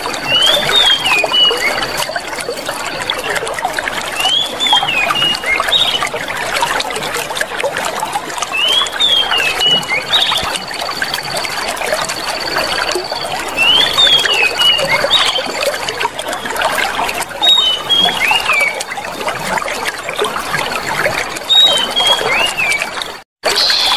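Clear water trickling and flowing steadily, with a small bird repeating short chirping phrases about every two seconds and a thin, high steady tone that comes and goes. The sound drops out for an instant near the end.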